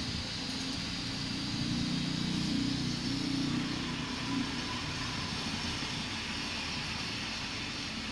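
Liquid nitrogen being filled into a container from a hose, making a steady hissing rush with a low rumble underneath as it boils off into vapour.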